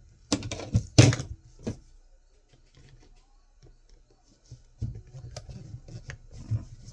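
Sharp knocks and clicks of metal hand tools and hard drive parts being handled and set down, a cluster of them in the first two seconds, then a run of small light clicks and rattles near the end.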